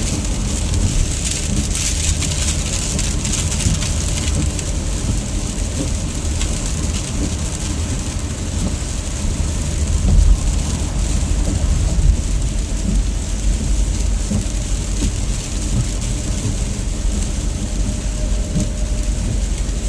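Inside a car cruising on a highway: a steady low rumble of road and engine noise, with a high hiss from rain and the wet road that is strongest in the first few seconds.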